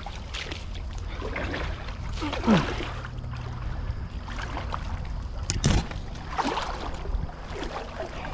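Someone wading through shallow water, sloshing and splashing at irregular steps, with two louder splashes about two and a half and five and a half seconds in.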